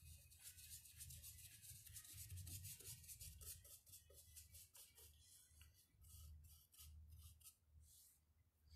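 Faint paintbrush scrubbing paint onto a rough wooden board in quick, repeated strokes that thin out near the end, over a low hum.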